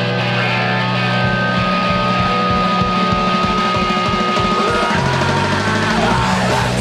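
Fastcore hardcore punk recording: distorted electric guitars and drums playing loud. A high note is held over rapid, evenly spaced drum hits, and the band changes to a new riff about five seconds in.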